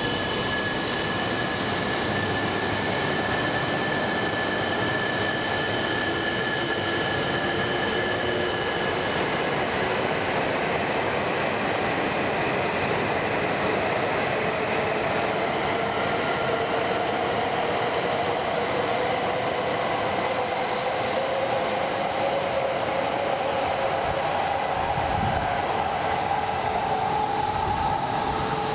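E3 series 0 and E5 series Shinkansen train pulling out and accelerating past the platform: steady rushing wheel-and-rail noise, with a whine that rises steadily in pitch through the second half as the train gathers speed.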